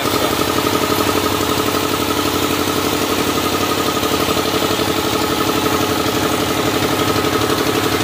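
Engine of a bitumen spraying machine running steadily with a fast, even pulse while binder is sprayed onto the road through a hand lance.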